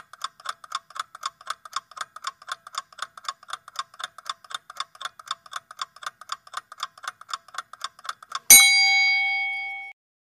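Countdown-timer sound effect: a clock ticking quickly and evenly, about four ticks a second, then a single loud bell ding about eight and a half seconds in that rings for over a second. The ding signals that the time to answer is up.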